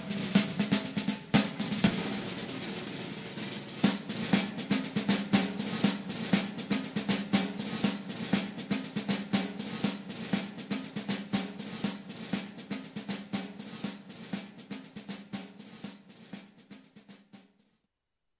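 Background music with a fast, steady drum beat that fades out and stops near the end.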